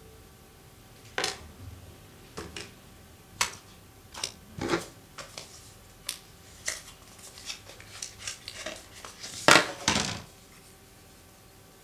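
Irregular taps, clicks and brief rustles of a new phone and its packaging being handled during an unboxing, the loudest cluster about nine and a half seconds in.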